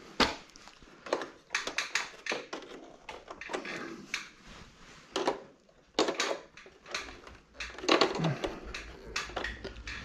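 Irregular metallic clicks and knocks as aluminium hooks are bent with pliers and fitted onto a curved metal dryer frame.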